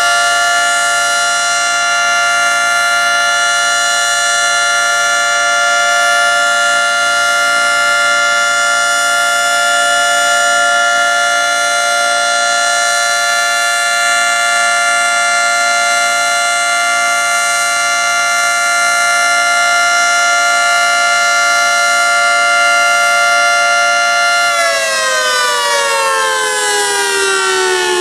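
Federal Signal 3T22 three-tone outdoor warning siren sounding its steady alert signal, a loud held chord of several notes. About 25 seconds in the chord starts to wind down, every note falling in pitch together, as the one-minute alert tone ends.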